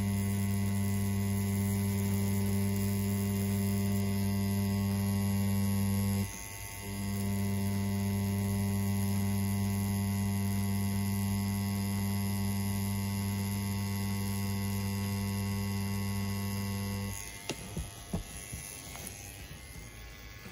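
CNC P6 rotary tattoo pen running with a steady low buzz. It stops briefly about six seconds in, runs again, then switches off near the end, followed by a few faint clicks.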